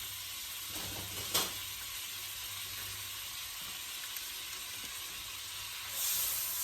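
Unsalted butter melting and sizzling in a hot skillet, a steady hiss. There is a single sharp tick about a second and a half in, and the sizzle grows louder near the end.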